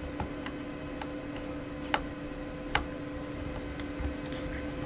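Small clicks and taps of a screwdriver and metal heatsink as a laptop's replacement CPU fan and heatsink assembly is being screwed into place, with two sharper clicks about two seconds and nearly three seconds in, over a steady hum.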